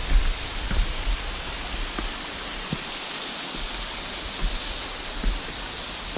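Steady rush of falling water from a mountain brook and waterfall, with a few low thumps mixed in near the start and again near the end.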